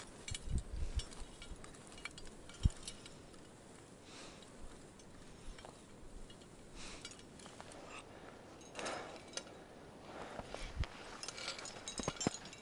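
Climbing hardware clinking now and then on a harness, with footsteps in snow, as a roped alpinist walks along a snow ridge. A few soft swells of noise come and go.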